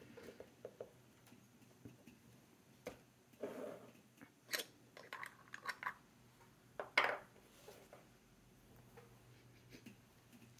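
Faint small handling sounds on a desk: an ink bottle's screw cap being twisted off and set down, with scattered light clicks and short rustles, the loudest about seven seconds in.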